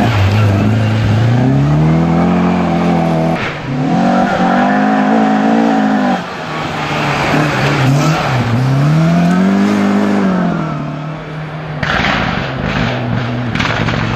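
Rally cars passing one after another at full throttle, engines revving high and dropping between gear changes in several rising and falling sweeps. Near the end a run of sharp cracks and pops.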